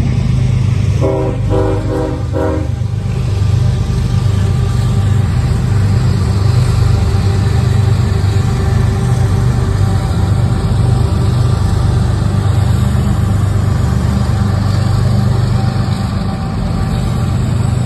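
Norfolk Southern diesel locomotives passing close by on a freight train: a few short horn blasts about a second in, then a steady low engine rumble with the rolling noise of wheels on rail.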